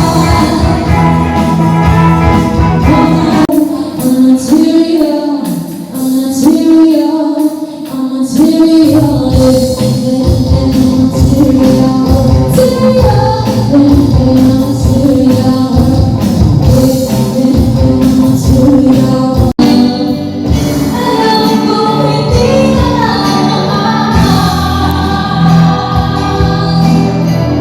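A song with singing over an instrumental backing; the sound cuts out for an instant about twenty seconds in.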